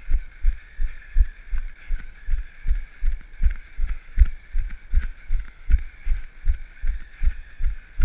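A runner's footfalls: steady, evenly paced low thumps about three a second, one for each stride.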